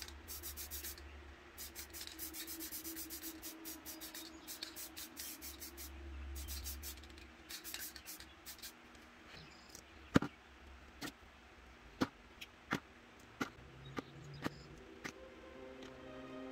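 Aerosol spray paint can sprayed in a rapid series of short hissing bursts, followed by a few sharp clicks as plastic bottle caps used as masks are lifted off the paper and set down.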